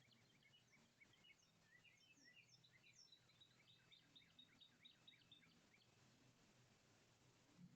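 Faint songbirds chirping and singing: many short, quick chirps, with a fast run of evenly repeated notes in the middle.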